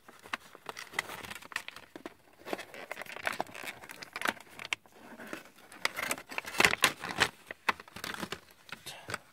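Thin clear plastic blister packaging crinkling and clicking as it is handled, with sticky tape being pulled off it. The irregular crackles come in clusters, the loudest about two-thirds of the way through.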